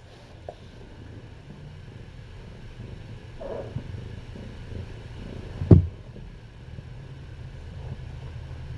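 A cat purring, a steady low rumble, with one sharp thump a little before six seconds in.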